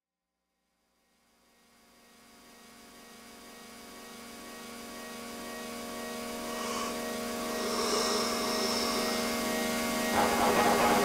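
A steady droning hum with many overtones fades in from silence and grows steadily louder; near the end a hissing rush joins it.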